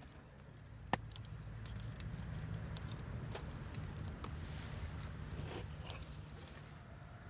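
Wood campfire crackling: scattered sharp pops over a low steady rumble, with one louder snap about a second in.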